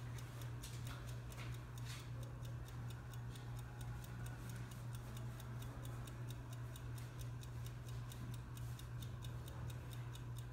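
Rapid, evenly spaced ticking, several ticks a second, over a steady low hum in the room.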